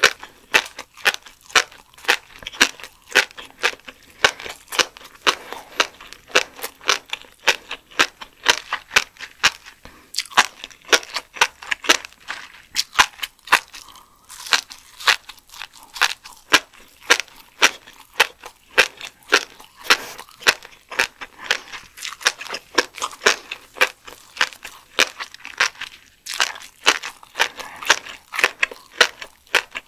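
Close-miked chewing of steamed Pacific spiny lumpsucker roe: a dense, unbroken run of crisp crunching and popping clicks, several a second.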